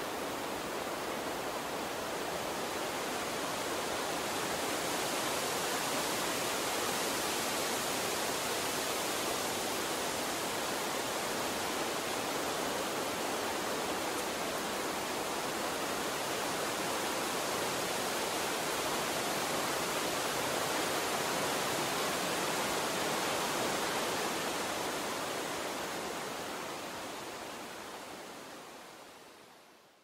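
Steady, even rushing noise with no music or distinct events, fading out over the last few seconds.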